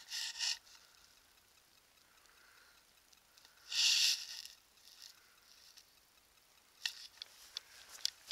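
Light footsteps and rustling of someone walking over rough moorland grass and rock: a short loud rustle about four seconds in, then a string of sharp little clicks and steps near the end.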